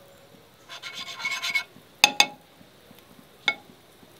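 A knife carrying a lump of butter is scraped in quick rubbing strokes across a non-stick flat pan to grease it. About two seconds in come two sharp clicks, and another single click near the end, as the knife knocks against the pan.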